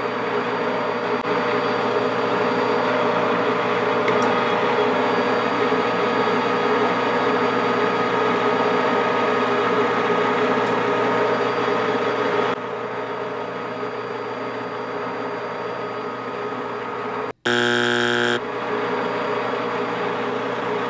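Metal lathe running under power with the lead screw engaged for a scratch pass of single-point threading on an aluminium plug: a steady machine hum of motor and gears that drops a little in level about twelve seconds in. Near the end the sound breaks off abruptly and a buzzing tone lasts about a second before the hum resumes.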